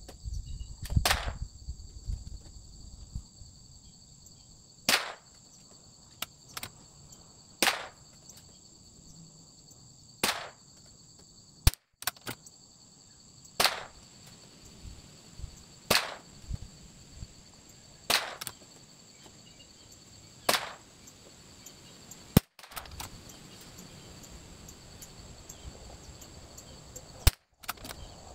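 A .22LR bolt-action rimfire rifle, a Bergara BMR, fires eight single shots at a slow, even pace of about one every two to three seconds, each a short sharp crack. Three sharper, louder cracks stand out among them.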